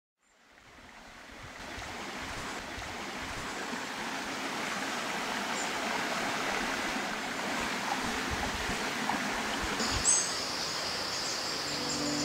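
Stream water running steadily, fading in from silence over the first two seconds. About ten seconds in, a high steady chirring and a short chirp join it.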